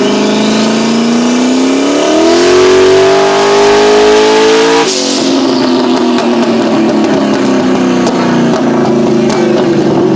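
A high-horsepower race car engine revving: its pitch climbs steadily for about five seconds, then drops suddenly with a short sharp hiss as the throttle closes. It then runs on unevenly at a lower pitch.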